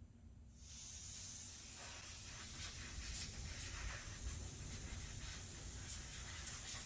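Compressed air hissing steadily from a tank-mounted regulator, starting about half a second in: air escaping from a leak in the fitting.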